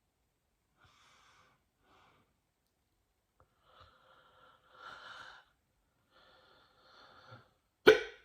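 A person breathing softly through several quiet breaths, then one sharp, loud hiccup near the end.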